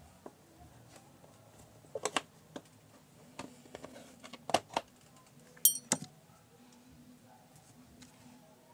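Handling noises on a Singer portable sewing machine: an irregular string of sharp clicks and knocks against its housing, with one short metallic clink, the loudest sound, a little past halfway.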